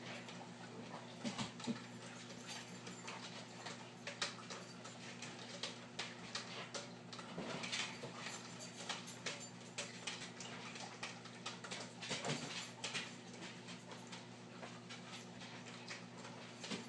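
Steady low hum of reef aquarium equipment, with scattered irregular clicks and small pops over it.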